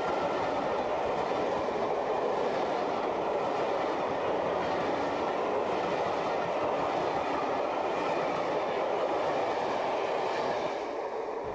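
Steam-hauled passenger train passing close at speed: a steady loud rush of coach wheels running on the track, easing off slightly near the end.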